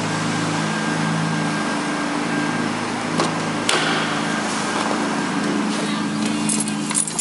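Mazda 323F BA's KL-ZE 2.5-litre V6 engine idling steadily. There is a sharp click about halfway through, and a cluster of clicks ending in a sharp knock near the end.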